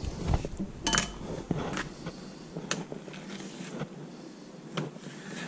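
Kitchen handling sounds: a few scattered sharp knocks and clinks of a knife, dishes and a plastic cutting board as a shark steak is set on the board and sliced. The loudest is a clink with a brief ring about a second in.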